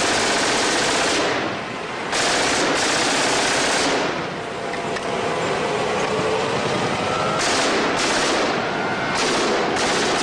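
Sustained automatic gunfire, a dense rattle whose high end cuts in and out, dipping briefly twice.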